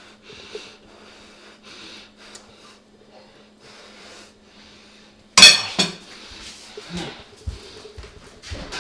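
A man breathing hard in short, evenly spaced breaths, then a sudden loud retch about five seconds in, followed by irregular gagging sounds: a man making himself vomit.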